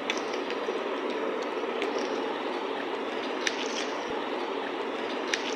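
A steady, even noise runs throughout, under a few faint, light clicks as a hand mixes a thick spice and yogurt marinade with whole spices in an enamel bowl.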